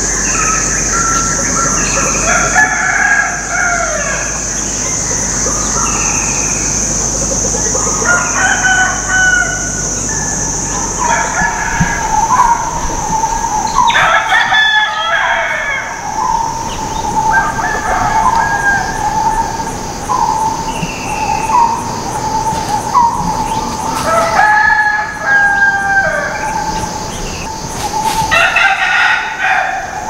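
Rooster crowing several times among wild bird calls, over a steady high-pitched drone. From about halfway on, a bird repeats a short note about once a second.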